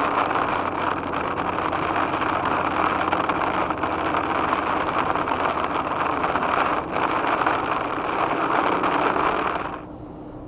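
Toyota Land Cruiser FZJ80 driving at highway speed on a wet road in rain: a steady rushing of tyres on wet pavement and rain, heard from the cabin. It drops off sharply near the end.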